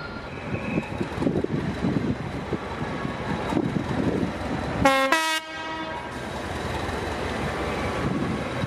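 Class 207 diesel-electric multiple unit's English Electric diesel engine running with a steady rumble, and a short horn blast of about half a second about five seconds in.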